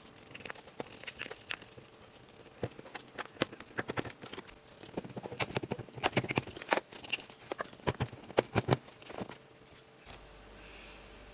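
Hands handling a toy gem excavation kit: irregular clicks, taps and crinkles, busiest and loudest in the second half, stopping about a second before the end.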